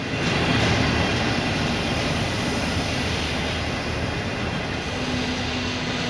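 Passenger train coaches rolling past a station platform as the train arrives: a steady rumble and rush of wheels on rail. A steady low hum joins near the end.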